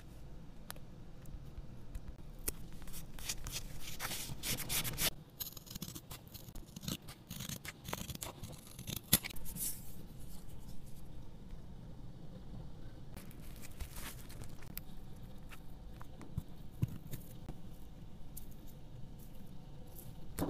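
Close-miked paper-craft handling: a paper tag, wax seal and ribbon moved and rubbed about on a desk, giving scratchy rustles and scrapes with small taps. It comes in a few busier stretches of several seconds.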